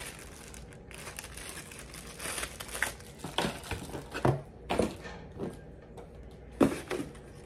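Plastic packaging crinkling while hard plastic parts of a mobile LED phone light are handled, with several sharp clicks and knocks in the second half.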